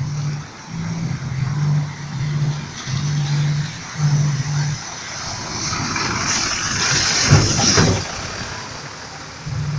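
A light truck driving through a flooded cobbled street, its tyres splashing and throwing water. The noise builds and is loudest as it passes, about seven to eight seconds in. In the first half, and again near the end, the bass line of loud music repeats under it.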